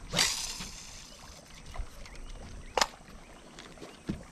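Spinning rod being cast: a brief whoosh as the rod swings and line pays out at the start, then a sharp click a little under three seconds in and a short dull thump near the end.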